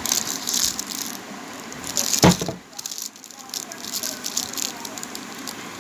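Rustling and handling noise as a soap bar and cream jars are picked up and moved, in crackly bursts, with a single knock a little over two seconds in.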